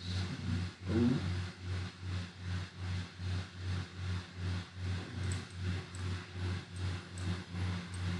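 A low machine hum that throbs steadily about three times a second, with a short louder sound about a second in.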